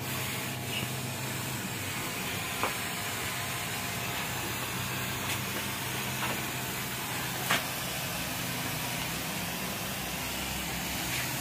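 Hand trigger spray bottle squeezed a few times, each squeeze a short spritz of water mist onto plant leaves, over a steady hiss and low hum of background noise.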